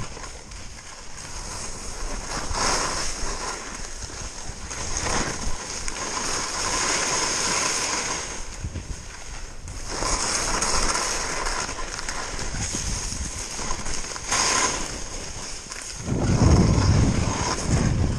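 Skis sliding and scraping over snow on a downhill run, a hissing rasp that swells every few seconds. Near the end, wind buffets the microphone with a low rumble that is the loudest part.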